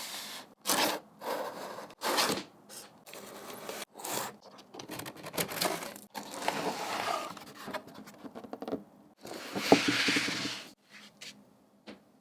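Packaging of a keyboard box being handled and opened: a series of short scraping and rustling strokes, with a sharp click a little under ten seconds in followed by about a second of louder rustling.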